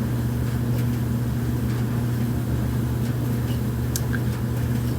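A 2020 Kenmore gas dryer running: a steady, even motor-and-drum hum, with a couple of faint clicks.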